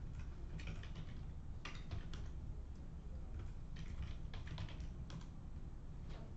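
Typing on a computer keyboard in short bursts of key clicks with pauses between, over a low steady hum.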